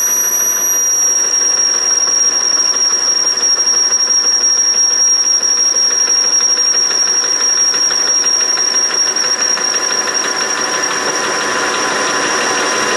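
Metal lathe running steadily with a high, even whine, turning a bar of 4140 annealed tool steel.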